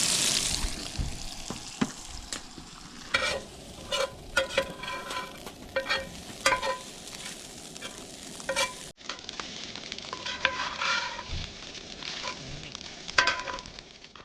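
Breakfast frying in a pan: a loud sizzle at the start that quickly dies down, then a run of sharp clinks and scrapes as the food is stirred and turned.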